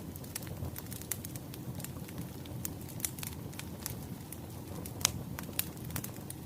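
Wood fire crackling: a steady low rumble with irregular sharp pops and snaps, one louder pop about five seconds in.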